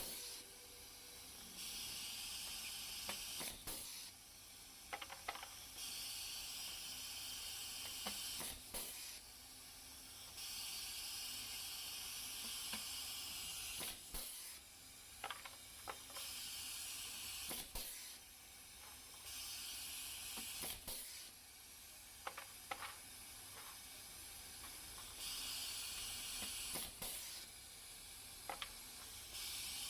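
Pneumatic vacuum-type pop riveter at work: air hissing in stretches of a few seconds that start and stop, with short sharp clicks between them as rivets are set.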